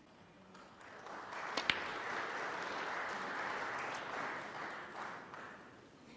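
Snooker crowd applauding, building about a second in and fading away after about five seconds. A single sharp click of a snooker ball being struck sounds near the start of the applause.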